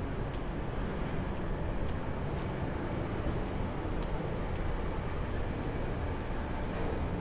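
Steady city street ambience: a low, even hum of traffic, with a few faint clicks here and there.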